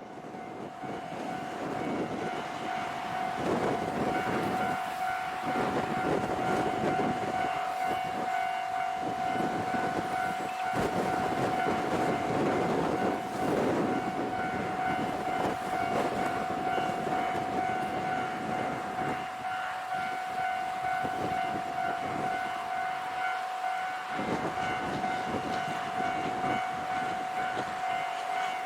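Railway level-crossing warning bell ringing steadily on one unchanging pitch, over the rumble of a train on the line.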